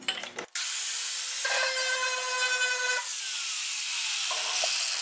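Angle grinder fitted with a shrinking disc, rubbed hard against a high spot on a steel body panel to heat it and shrink out an oil-canning bulge. The motor whine holds, then falls away about three seconds in as the grinder spins down. Hissing continues after that as water is sprayed onto the heated spot to quench it.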